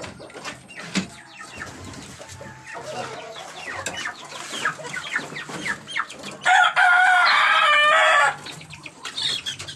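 A gamecock crows once, loudly, for nearly two seconds, starting about six and a half seconds in. Before the crow there are scattered clucks and short calls from the fowl, and clattering knocks as the wooden slat coops are handled.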